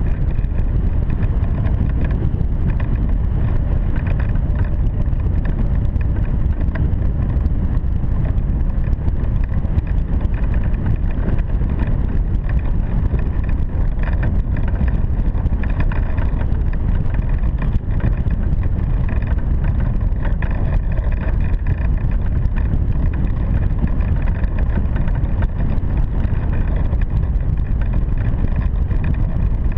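Airflow over a hang glider in flight buffeting the wing-mounted camera's microphone: a steady, loud, low wind rumble that never lets up.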